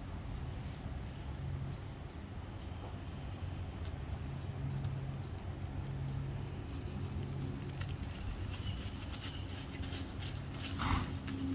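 Wind buffeting the microphone in a steady low rumble, with faint light ticks about twice a second and a spell of crackling near the end.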